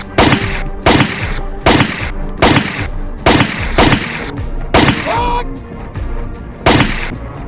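Gunshots fired singly, eight in all, about one every three-quarters of a second with a pause of nearly two seconds before the last, over background music. One shot is followed by a short whine.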